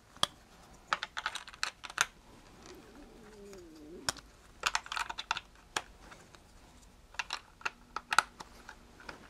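Plastic building bricks clicking as they are handled and pressed onto a studded baseplate, in several quick clusters of sharp clicks with short pauses between.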